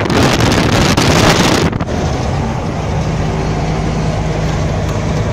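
Wind buffeting the microphone at a truck cab's side window while the truck drives on. This stops abruptly a little under two seconds in, leaving the steady running of the truck's engine and road noise inside the cab.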